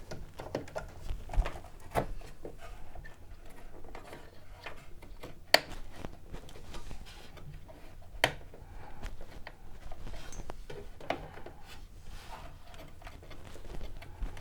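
Clicks and knocks of an NVMe PCIe adapter card with a heatsinked M.2 drive being handled and pushed into a desktop PC's PCIe slot, with two sharper snaps about five and a half and eight seconds in, over a low steady hum.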